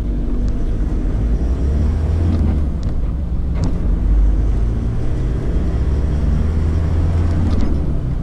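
Land Rover Defender 90 on the move, heard from inside the cab: a steady low engine and road rumble.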